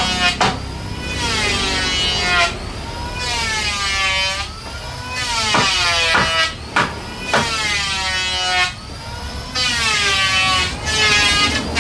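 Handheld electric woodworking power tool whining, its motor pitch dropping as it bites into the wood and rising again as it frees up, about five cuts in a row, with sharp knocks between passes.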